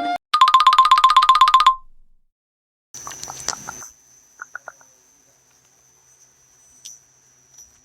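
Mobile phone ringtones: a fast trilling electronic beep for about a second and a half, then after a short pause a brief buzzy burst, a few soft plinks and a faint, steady high whistle.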